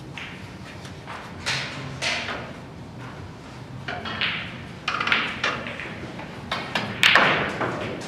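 Snooker balls clicking: the cue tip strikes the cue ball, which runs up the table into the reds. There is a series of sharp knocks, and the loudest comes about seven seconds in.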